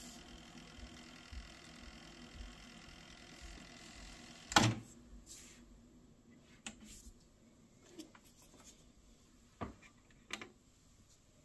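Yamaha KX-380 cassette deck's tape transport whirring as it rewinds, ending in a sharp clunk as the mechanism stops about four and a half seconds in. Then a few faint separate clicks of its front-panel buttons being pressed.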